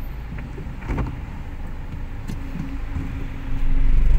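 Car cabin noise in slow traffic: a steady low engine and road rumble with a couple of light clicks, the rumble growing louder about three and a half seconds in.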